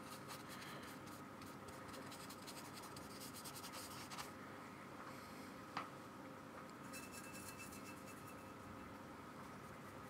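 A paintbrush scratching and rubbing paint onto paper in quick strokes, faint. The strokes come thickly over the first four seconds, with a single light tap near the middle and more strokes from about seven seconds in.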